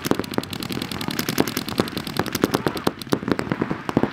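Paintball markers firing rapidly: a dense run of sharp pops, many a second, in quick uneven streams.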